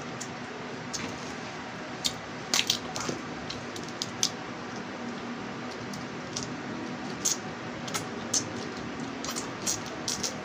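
Small crabs being eaten by hand: irregular sharp cracks and clicks of shell being pulled apart and chewed, with wet squishing.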